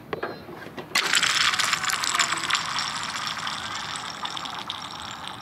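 A piece of ice thrown out onto a frozen canal, skittering and sliding across the ice sheet. It makes a rapid rattle of many small clicks that starts about a second in and slowly fades.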